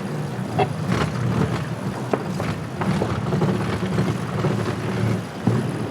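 Steady rushing wind and water noise aboard a VO65 racing sailboat under way, with scattered clicks and knocks from deck gear.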